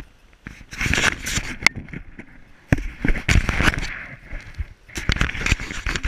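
Rough rumbling and crackling noise on the handheld camera's microphone, coming in three bursts of a second or so each.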